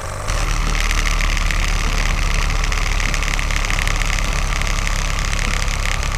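Small motor of a DIY model tractor and chaff-cutter machine running steadily, a buzz with a fast rattle. It gets louder about a third of a second in.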